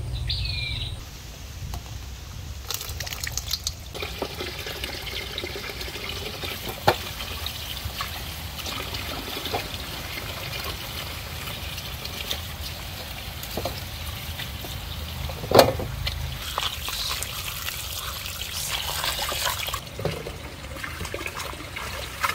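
Water pouring and trickling steadily, with a few sharp knocks of a container; the loudest knock comes about fifteen seconds in.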